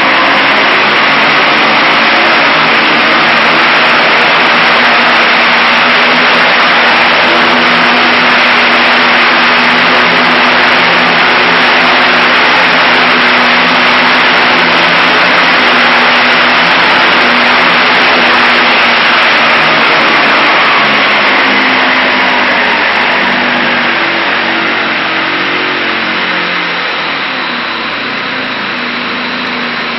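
Aerotwin AT972 four-stroke twin-cylinder engine running loud and steady on a test, then easing down and getting quieter over the last several seconds.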